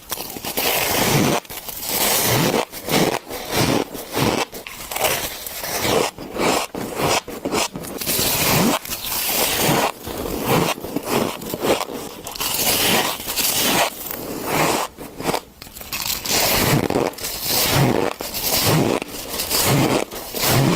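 Shaved ice being bitten and chewed close to the microphone: quick, repeated crunches with a squeaky edge, one to two a second.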